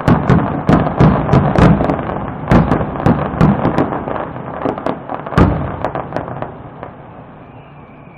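Fireworks display: aerial shells bursting in quick succession, loud bangs over a continuous crackle. The bangs thin out after about six seconds and the crackle dies away near the end.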